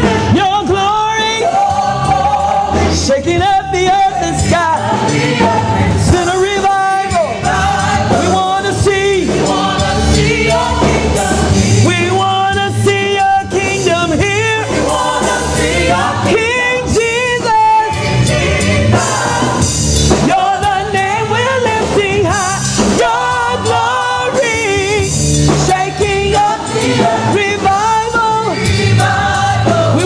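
Gospel praise team singing: several women's voices sustaining sung lines together, with musical backing underneath.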